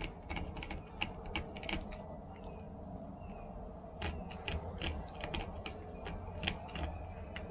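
Irregular short scraping clicks, several a second, as a gutted fish is scraped clean by hand on a plastic cutting board to get the blood out of the belly cavity.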